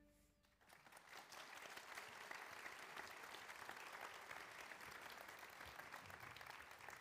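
Audience applause: many people clapping, starting about half a second in and going on steadily, fairly faint.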